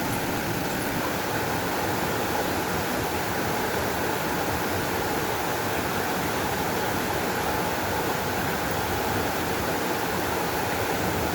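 Water flowing steadily: an even, continuous rush with no breaks.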